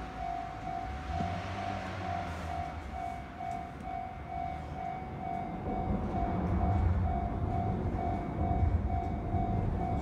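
Japanese level-crossing warning bell ringing steadily, an even electronic ding about one and a half times a second. A low rumble comes in under it and grows louder from about six seconds in.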